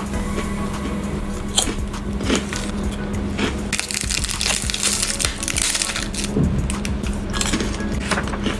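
Eating sounds: biting and chewing a cheese-filled bread bun, with scattered short crackling clicks, over steady background music.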